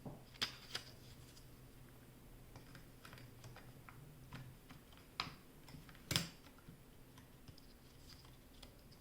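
Scattered light clicks and taps of a laptop SO-DIMM RAM module being fitted into its slot and pressed down, with a sharper click about six seconds in.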